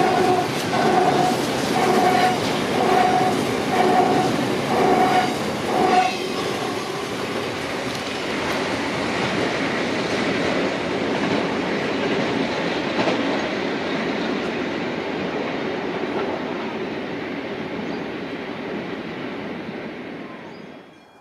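Freight train's container wagons rolling past on the rails, the wheels clattering with a pulsing tone about once a second. About six seconds in the last wagons go by, and the rolling rumble fades steadily as the train moves away.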